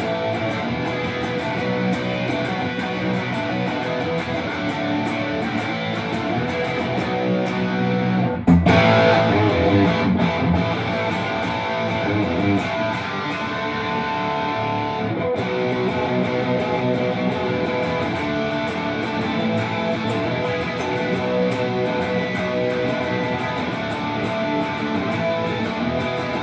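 Electric guitar with P-90 pickups played through a ToneKing Royalist preamp set to its 1970 mode with gain and guitar volume full up: heavily overdriven riffs and chords without pedals. A loud chord hit comes about eight seconds in.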